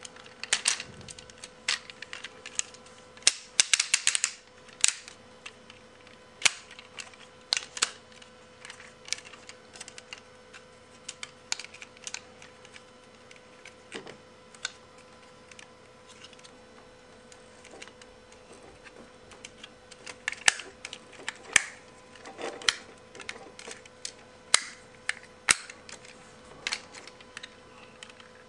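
Parts of a Transformers Sixshot toy clicking and snapping as it is transformed by hand: scattered sharp clicks, with dense runs about three to five seconds in and again about twenty to twenty-six seconds in. A faint steady hum runs beneath.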